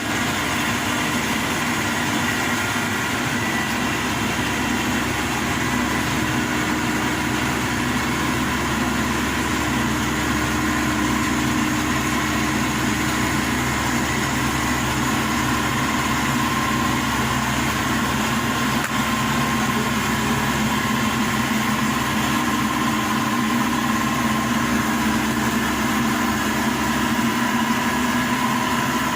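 Diesel engine of a Maxxi Bimo Evo 102 L combine harvester running steadily at an even pitch.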